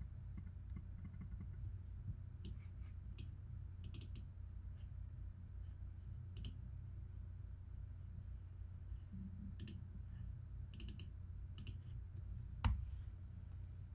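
Scattered single clicks at a computer, a few seconds apart and some in quick pairs, with the loudest near the end, over a steady low hum.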